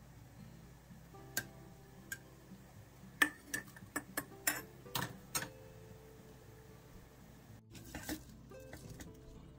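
A metal spoon clinking against a glass jar: about nine sharp clinks, each with a short glassy ring, spread over a few seconds. Near the end comes a brief rustle as green onion stems are pushed into the jar, with soft background music underneath.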